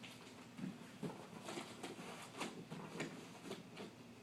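A cardboard shipping box being opened by hand: a few short, irregular scrapes and rustles of cardboard and packing.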